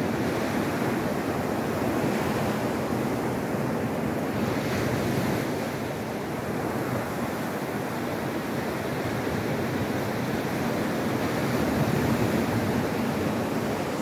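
Atlantic surf breaking and washing up a pebble beach: a continuous rushing of waves that swells a little as a breaker comes in near the end.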